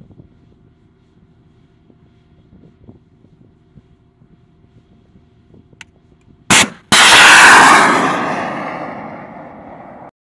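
FGM-148 Javelin missile fired from a Stryker's CROWS-J remote weapon station: a short sharp bang as the soft-launch motor ejects the missile, then a fraction of a second later the flight motor ignites into a loud rushing noise that fades over about three seconds as the missile flies away. Before the launch the Stryker's engine idles steadily.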